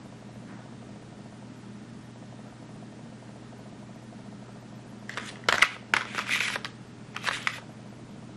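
Clear plastic blister pack being handled and turned over: a short run of crackling, clicking plastic starting about five seconds in, with a second shorter crackle near the end. A steady low hum sits underneath.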